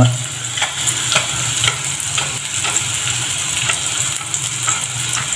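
String beans frying in oil in a small metal pan, a steady sizzling hiss with light clicks every half second or so.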